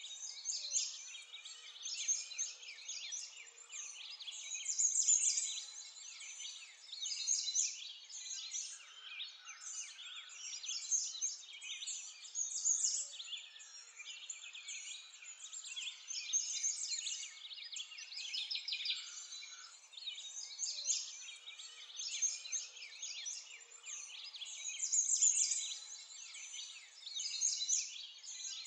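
A chorus of small songbirds chirping and trilling, high-pitched and continuous, swelling and fading every couple of seconds.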